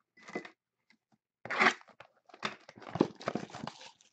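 Plastic wrapping being torn and crinkled off a pack of trading cards: a short rustle near the start, then a dense run of tearing and crinkling from about a second and a half in.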